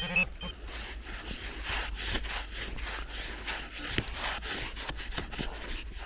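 Dry beach sand being dug and scraped by hand with a small tool: a run of short scratchy strokes, about two a second, with one sharper knock about four seconds in.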